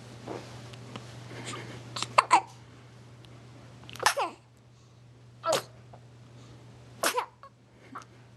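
Hiccuping: short, sharp catches in the breath, repeating about every second and a half.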